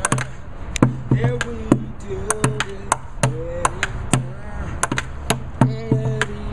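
Bucket drumming on a white plastic bucket with drumsticks: quick sharp stick hits mixed with deeper thumps, in an irregular rhythm. A voice hums a tune over the drumming.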